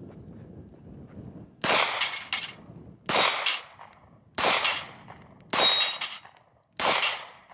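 Five single pistol shots fired at a slow, even pace about a second and a quarter apart, each answered by the clang of a steel plate target ringing.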